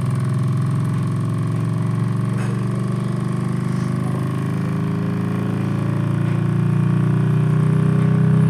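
Low test signal played through a homemade speaker driven by an amplifier: a deep, steady buzzing tone with slowly shifting overtones, growing a little louder near the end.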